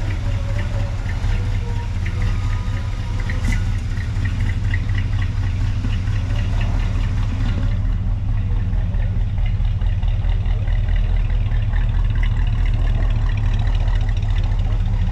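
1967 Chevrolet Impala's engine idling steadily.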